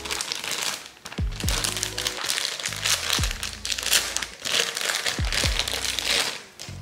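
Clear plastic bag crinkling as it is handled and opened, over background music with deep bass notes that drop in pitch.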